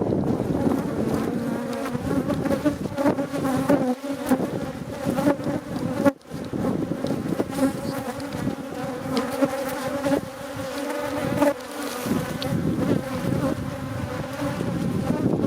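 A dense swarm of Africanized honeybees buzzing loudly around an opened hive, many overlapping hums with scattered ticks. The bees are agitated and defensive at the hive being disturbed.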